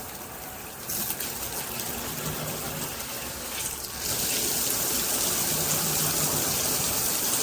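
Water spraying from a dual rain-and-handheld shower head, the flow growing louder about a second in and again, to a steady full spray, about four seconds in.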